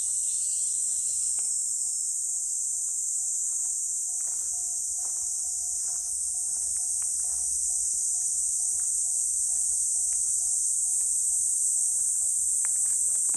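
Cicadas singing in a steady, unbroken high-pitched chorus.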